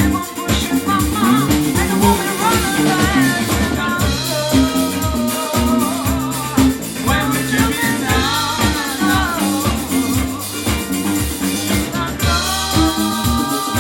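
A band playing an upbeat rock song: a drum kit keeping a steady beat under bass, guitar and a sung melody.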